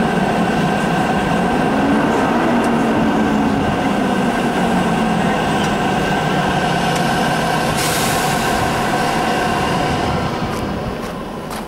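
ЭП2К electric locomotive standing at the head of a passenger train, its auxiliary machinery running with a steady hum and whine. About eight seconds in, a burst of air hiss lasts a couple of seconds. The hum fades a little near the end.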